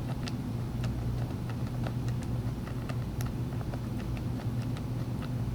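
Light, irregular plastic clicks, about two or three a second, from the tool-less chain tensioner's thumb wheel on a Husqvarna 235 e-series chainsaw as it is spun to tighten the chain. A steady low background hum sits underneath and is louder than the clicks.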